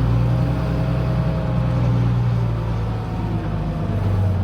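New Holland TM tractor engine running steadily under load as the plough goes back into work after a headland turn, a constant low hum with a faint whine above it.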